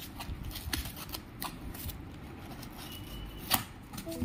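Scissors cutting into a cardboard parcel and its packing tape, with scattered snips, scrapes and rustles of cardboard and one sharper click about three and a half seconds in.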